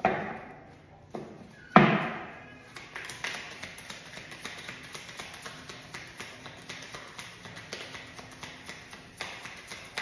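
Tarot cards being shuffled and handled by hand: a run of quick, light card taps and flicks, after two sharp knocks on the table near the start, the second and louder one about two seconds in.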